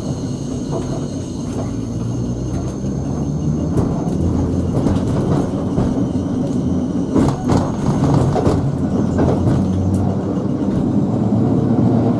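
Heard from inside the saloon of Sheffield tramcar 510, an electric tram running along the track. There is a steady low rumble and hum, with scattered clicks and knocks from the wheels and the rails.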